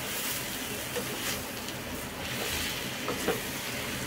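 Raw mango slices and granulated sugar being stirred with a wooden spoon in a hot nonstick kadhai, with a steady sizzle and a few faint scrapes of the spoon.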